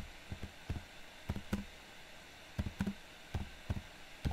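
Computer keyboard being typed on: short, sharp key clicks in irregular little runs with brief pauses between them.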